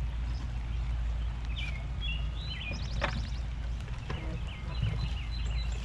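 Songbirds chirping in quick series of short calls, twice, over a steady low outdoor rumble, with a single sharp click about three seconds in as a plastic bucket is handled.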